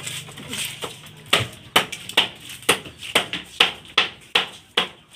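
Big knife chopping into a sailfish at the base of its dorsal fin: a run of about a dozen sharp hacks, roughly three a second, starting about a second in, as the fish is butchered.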